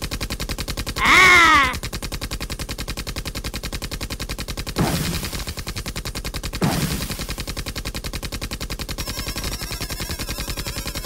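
Cartoon sound-effect track: a fast, even rattle of sharp clicks like machine-gun fire, with a short falling cry about a second in and two low thuds, near five and near seven seconds.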